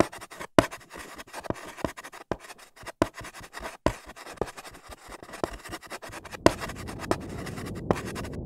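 Chalk writing on a blackboard: sharp irregular taps of the chalk against the board, a few a second, with scratchy strokes between them. A steady low hiss joins about two-thirds of the way in.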